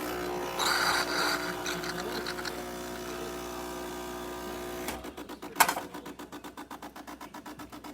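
DeLonghi Perfecta superautomatic espresso machine dispensing hot water, its pump running with a steady mechanical hum. About five seconds in, the hum changes to a rapid pulsing of about six beats a second, with a sharp click just after.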